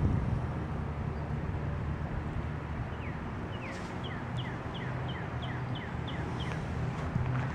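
A bird sings a quick series of about a dozen short down-slurred whistled notes, about three a second, starting about three seconds in and ending near the end. Under it runs a steady low hum.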